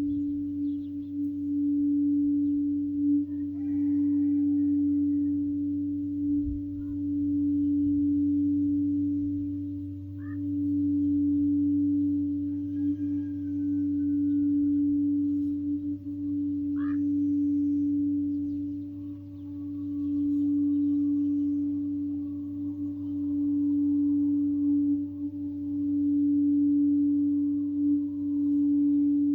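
Sacral chakra singing bowl kept sounding one steady low-mid tone that swells and fades about every five seconds.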